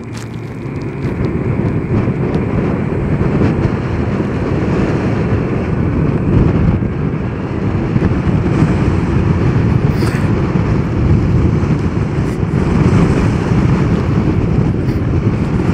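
Wind rushing over the microphone, with road and tyre noise, from a Zero DSR electric motorcycle riding along, with no engine note. It grows louder over the first few seconds, then holds steady.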